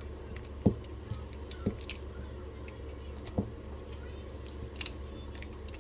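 A utensil stirring and pressing thick, sticky plantain fufu dough in a bowl, with three dull knocks, the loudest under a second in, and a few light clicks near the end.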